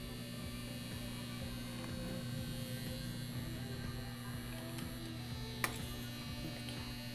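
Stacked microwave-oven transformers of a home-built arc welder humming steadily at mains frequency while powered with no arc struck. A single sharp click comes about five and a half seconds in.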